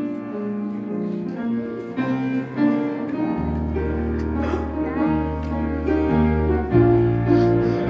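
Instrumental introduction to a song: sustained keyboard-like chords changing every half second or so, with deep bass notes coming in about three and a half seconds in.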